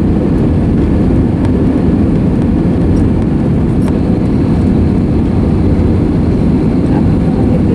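Steady low rumble of engine and airflow noise inside the cabin of an Airbus A320neo in flight.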